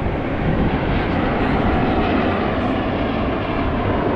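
Airplane engine noise at an air show, a loud, steady rush.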